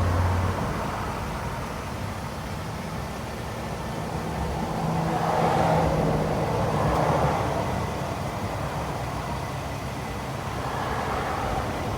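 Road traffic noise with a vehicle passing, swelling to its loudest about halfway through and then fading.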